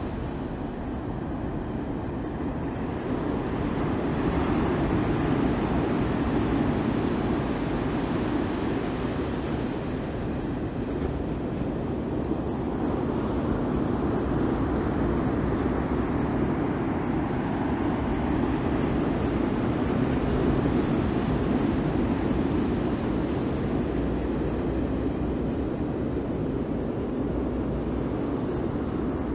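Steady rushing noise of ocean surf, swelling and easing slowly over several seconds.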